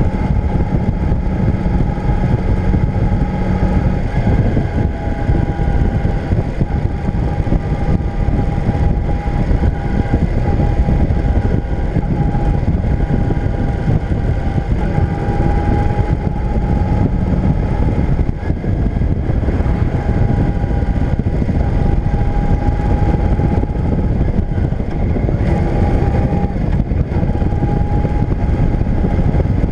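Motorcycle engine running steadily while riding along a road, its note holding one even tone, with a heavy low rumble of wind on the microphone.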